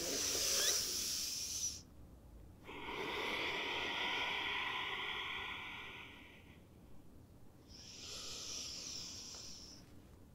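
A woman's audible yoga breathing, timed to her movement. A short hissing inhale, then a long exhale of about four seconds, then another short inhale near the end.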